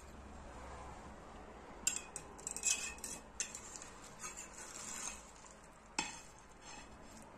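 A metal cake server scrapes and clicks against a glass pie dish as it is worked under a slice of kadayıf. There is a cluster of clicks and scrapes from about two to five seconds in, then one sharp clink about six seconds in.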